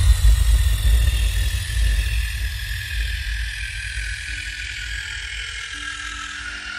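FPV racing quadcopter's brushless motors whining through the onboard camera's microphone, over heavy wind rumble. The whine slides slowly down in pitch as the rumble fades.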